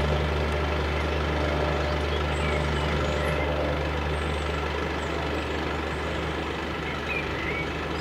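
Fire engine's diesel engine idling with a steady low hum; a slightly higher tone in it fades out about four seconds in.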